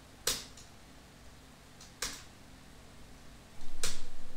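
Three sharp clicks of a computer keyboard's Enter key, about two seconds apart, over quiet room tone. A low rumble sets in with the last click.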